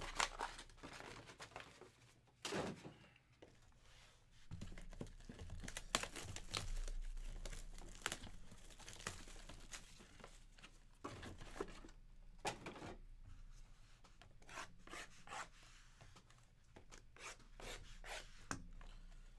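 Sealed trading-card hobby boxes being unwrapped and handled: plastic wrap tearing and crinkling, cardboard boxes rubbing and sliding, with a few sharp knocks as boxes are set down on the table.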